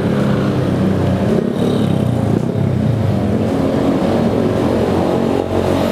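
Motor vehicle engine running steadily, a continuous low droning hum of roadside traffic.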